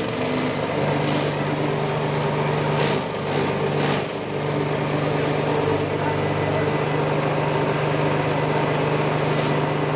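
Grass chopper driven by a small 5.5 hp petrol engine, running steadily at a fixed speed with its cutter whirring. The engine note dips briefly about three and four seconds in.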